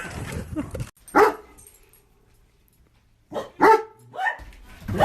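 A dog barking in short single barks, a few times, with a quiet pause of a couple of seconds between the first bark and the next ones.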